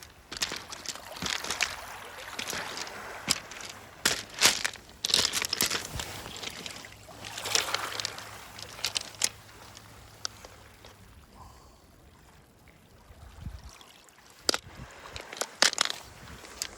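Small waves washing in over a pebble beach, coming in swells of water noise, with many sharp clicks and knocks of pebbles.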